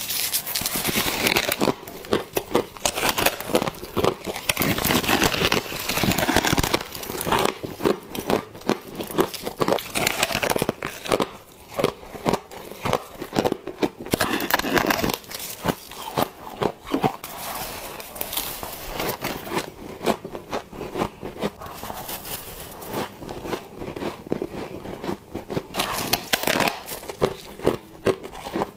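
Close-up bites into flaky frost, a rapid run of crisp crunching and crackling as it is bitten and chewed, one bite after another.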